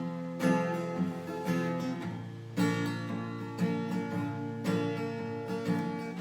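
Acoustic guitar strumming a slow chord introduction to a hymn, with a new chord struck about every two seconds and lighter strums between.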